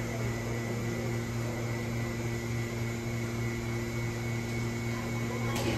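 Steady mechanical hum: a low drone with a faint high whine over an even rushing noise, like building ventilation or electrical equipment, with one short click near the end.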